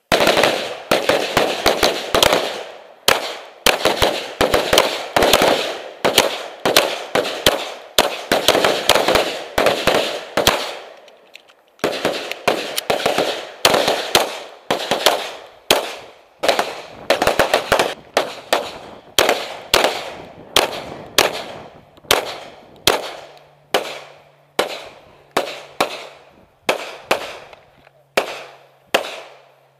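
Live gunfire: rapid, overlapping shots for about the first ten seconds, then single shots coming about one to two a second.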